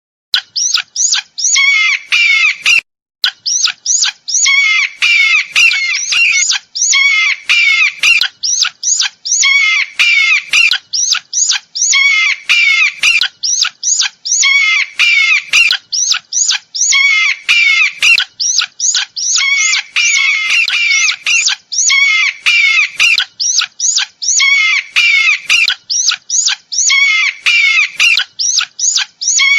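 Eagle calling: short phrases of rapid, high chattering notes, repeated about every two seconds.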